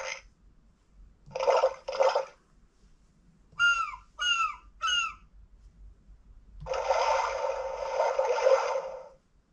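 LeapFrog 100 Animals Book playing sound effects through its small speaker. Short noisy bursts come first, then three short calls falling in pitch, then a long rushing, water-like sound of about two and a half seconds.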